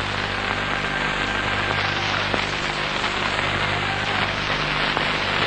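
Steady hiss with a low hum underneath: the background noise of an old recording, with no speech or music.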